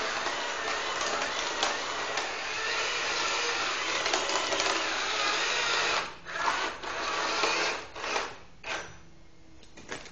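Tamiya twin-motor gearbox driving a homemade model Sherman tank: its small electric motors and plastic gears whir steadily, then about six seconds in it stops and starts in several short bursts before dropping away near the end.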